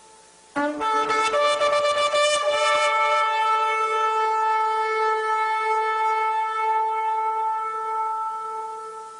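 Shofar (ram's horn) blown in one long blast. It starts about half a second in with a brief lower note that jumps up to the main pitch, then is held steady and slowly fades away. The fading end of the previous blast is heard at the very start.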